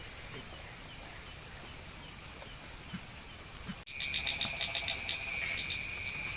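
Night-time chorus of crickets and other insects, with frogs: a steady high chirring that breaks off sharply about four seconds in, after which a faster pulsing chirp over a steady high tone takes over.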